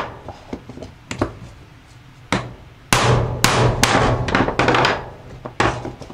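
Hammer blows on a steel bearing driver, knocking at a seized bearing in the aluminium rear carrier hub of a Polaris Outlaw ATV. A few spaced strikes come first, then a quicker run of heavy strikes about three seconds in, each ringing briefly.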